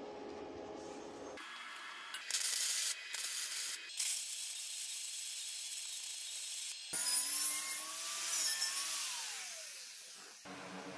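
Wire-feed welder arc crackling and hissing on steel tubing, in a few short bursts and then longer runs, starting about two seconds in.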